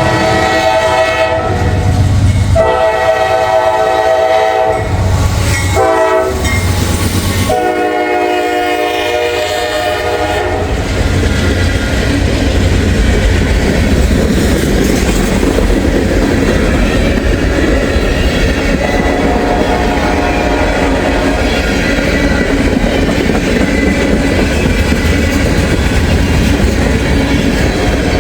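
Norfolk Southern freight train's horn sounding the long, long, short, long crossing signal, then the train rolling past with a steady rumble and clickety-clack of wheels over rail joints.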